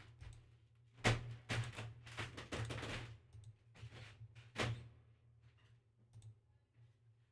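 A handful of dull knocks and clicks, most of them between about one and five seconds in, over a low steady hum.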